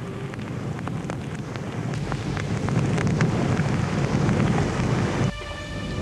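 Fire crackling as a book's paper pages burn, swelling about two seconds in into a louder rushing blaze full of sharp crackles. It cuts off suddenly near the end, where a few steady held tones come in.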